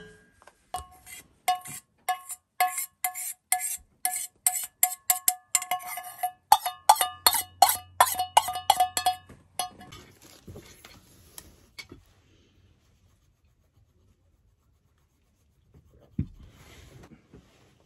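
A metal utensil clinking repeatedly against a ringing metal pan, two or three strikes a second, while pasta is mixed with butter. The clinks stop about ten seconds in.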